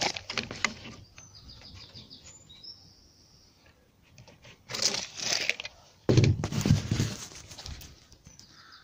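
Tools being handled while a board is measured and marked out: a few sharp clicks, a scraping sound, then a run of knocks and thuds. A bird chirps briefly in the background.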